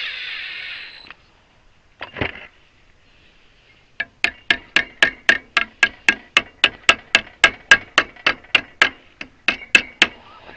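A power drill running briefly and stopping about a second in, then a single blow, then a hammer striking metal in a steady run of about four blows a second for some six seconds, each strike ringing.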